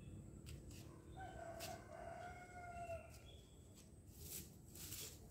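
A rooster crowing faintly: one crow about two seconds long that drops in pitch at the end. Soft rustles near the end.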